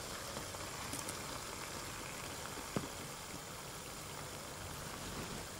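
Blended chili paste for sambal simmering in oil in a wok over a wood fire, a steady low bubbling hiss as it cooks down until the oil separates. One sharp knock of firewood being fed into the stove about three seconds in.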